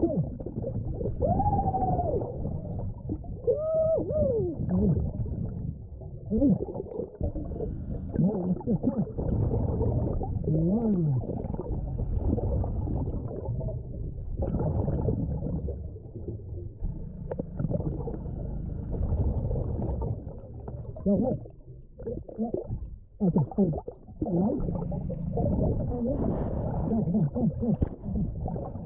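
Muffled underwater noise of a gloved hand digging and scraping through creek-bed sediment and gravel: a steady low rumble with scattered knocks and a few brief sliding, rising-and-falling tones.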